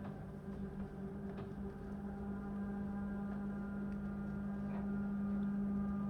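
A steady, low, trumpet-like drone with several fainter overtones above it, holding one pitch and swelling a little near the end: the unexplained 'sky trumpet' sound heard across the night.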